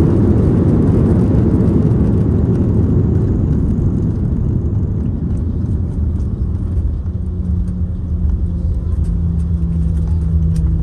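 Cabin noise of a four-engine Airbus A340-300 on the ground just after landing: a loud, steady low rumble of engines and rolling wheels. It eases a little about halfway through, and a steady hum comes in later.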